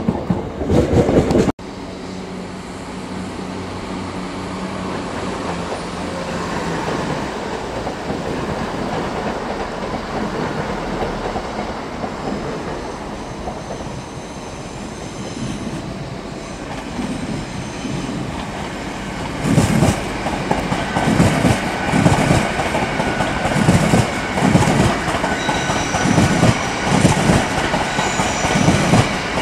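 A TransPennine Express Class 802 train rolls slowly past, its running sound building to a steady rhythm of loud wheel knocks over rail joints and points, about one a second, through the second half. A different train is heard loudly for about the first second and a half, then cut off.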